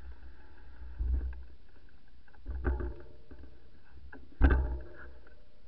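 Three low thuds and rumbles from a handlebar-mounted camera as the mountain bike is jostled and moved off, the loudest about four and a half seconds in, over a steady hiss.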